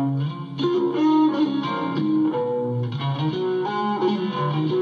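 Recorded electric guitar track playing back, a melodic line of single notes and chord tones, EQ'd through the PreSonus Fat Channel plugin.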